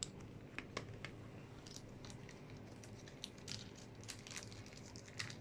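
Faint, scattered clicks and light scrapes of small metal parts being handled as a Cometa Lynx air-rifle regulator is taken apart by hand: the brass piston cartridge is drawn out of its housing and set down. A faint steady hum sits underneath.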